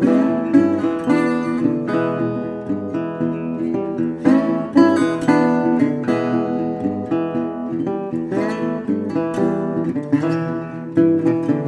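Intro music: acoustic guitar strumming and picking a steady tune.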